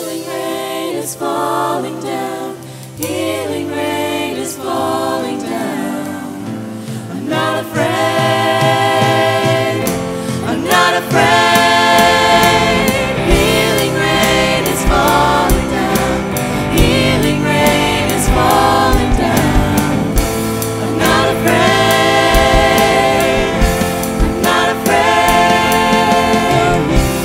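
Christian worship song: singers over a band, with drums building in about ten seconds in.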